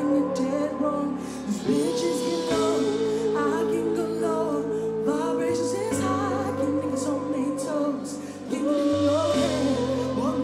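Live band music with sustained chords changing every few seconds, while a woman sings a slow, long-held melody with vibrato into a microphone.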